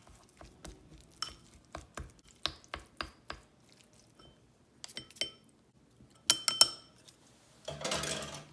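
Chopstick clinking and tapping against a small glass bowl while minced pork is stirred with cornstarch and oil, irregular clinks about two or three a second with a short glassy ring. A short scraping noise comes near the end.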